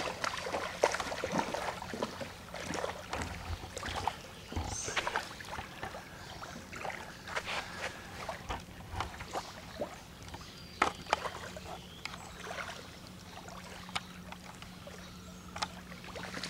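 Small lake waves lapping and splashing irregularly against the shore, over a faint steady low hum.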